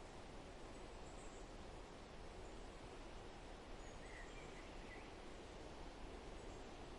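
Steady wind through forest trees, faint and even, with a few brief, faint bird chirps, the clearest about four seconds in.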